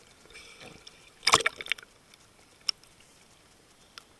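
Seawater splashing and sloshing around a camera bobbing at the waterline, with one louder splash about a second and a half in and a couple of small clicks after it.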